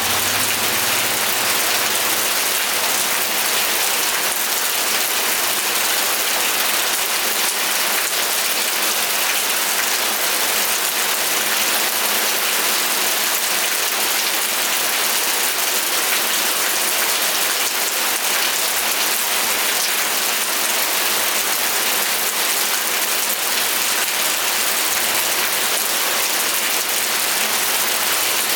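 Steady rain falling, a dense even hiss of many small drops pattering on a surface.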